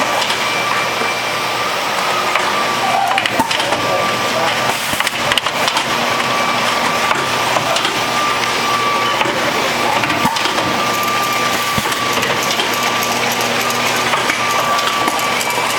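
Automated packaging-line machinery running: a dense, steady clatter of moving parts with scattered sharp clacks and a steady high whine that drops out for a moment about five seconds in.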